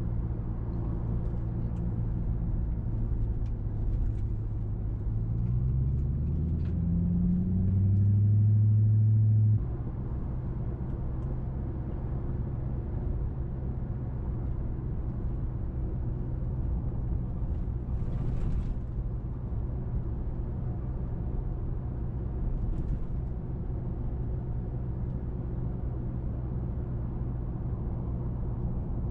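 2005 Mercury Grand Marquis's 4.6-litre V8 running through a muffler-delete exhaust (catalytic converters straight into an H-pipe), heard from inside the car while driving: a steady low drone. From about five seconds in it rises in pitch and gets louder as the car accelerates, then drops off abruptly just before ten seconds in and settles back to a steady cruising note.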